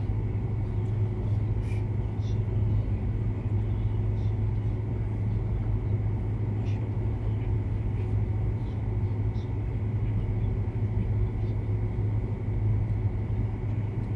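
Steady low electrical-sounding hum with background room noise, broken only by a few faint soft clicks.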